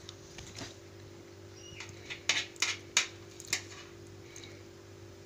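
Cutlery clinking against plates and a bowl as toppings are spooned onto a kumpir baked potato: a run of light, sharp clicks between about two and three and a half seconds in, over a steady low hum.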